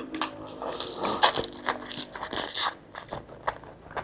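A person chewing food close to the microphone, with irregular crunchy bites and wet mouth clicks.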